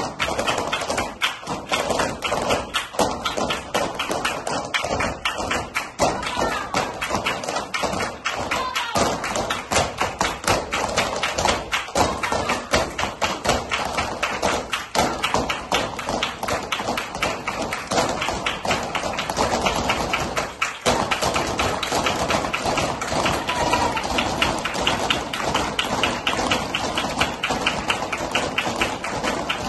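A group of flamenco dancers' footwork stamping and tapping on a wooden floor, mixed with hand clapping (palmas), in a fast, dense bulería rhythm with no accompanying music.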